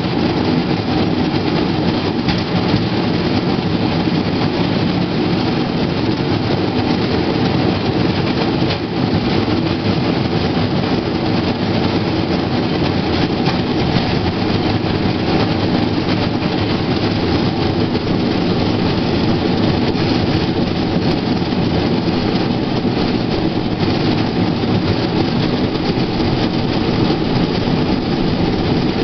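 Steel wheels of a pedal-powered rail bike rolling along railway track: a steady rumble with a few scattered clicks.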